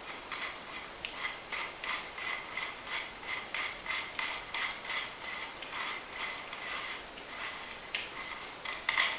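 A 15mm ratcheting wrench clicking as it loosens the top nut on the cartridge rod of a KYB SSS motorcycle fork, an even run of about three to four clicks a second.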